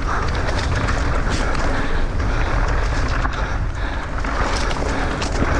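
Wind buffeting the microphone of a mountain bike's onboard camera on a fast downhill run, with tyres on dry, loose dirt and brief knocks and rattles from the bike over rough ground.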